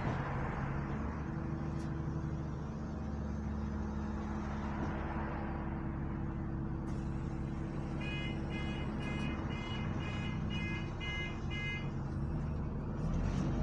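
Double-decker bus engine running steadily, heard from the upper deck as a low, even hum. About eight seconds in, a run of about eight short high beeps sounds, two a second, for about four seconds.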